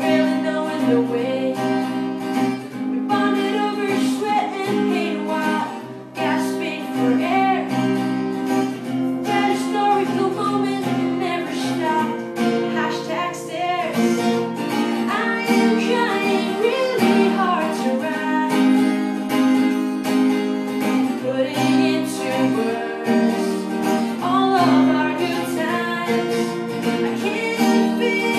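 A woman singing while strumming an acoustic guitar, a steady strummed accompaniment under her voice, with a brief drop in level about six seconds in.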